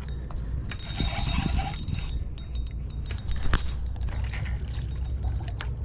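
Irregular clicking and rattling of fishing gear being handled on a boat, with a brief hiss about a second in, over a steady low rumble.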